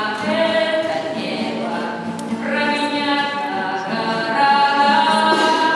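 A woman singing a song with long held notes to her own acoustic guitar, with other voices singing along.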